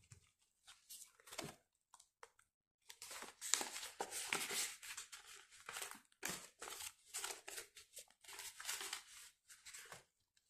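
Clear plastic binder pockets crinkling and rustling as they are handled, in irregular faint bursts, with a quiet pause about two seconds in.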